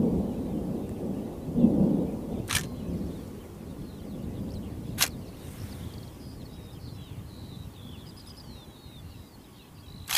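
Distant thunder rumbling low, strongest in the first two seconds and then dying away, with small birds chirping throughout. Two sharp clicks land about two and a half and five seconds in.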